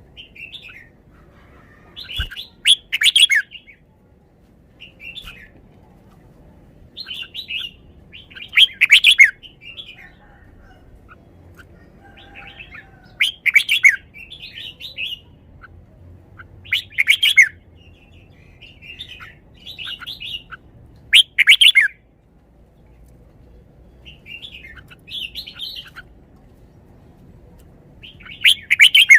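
Red-whiskered bulbul singing: short, loud phrases repeated about every four seconds, with softer chirps between them.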